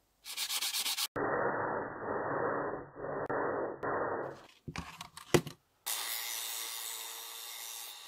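Sandpaper rubbing in short spliced clips, first quick strokes, then a longer stretch of steady rubbing by hand. A sharp click comes just past five seconds. Then a small rotary tool runs steadily with a sanding drum grinding a small rod held in pliers.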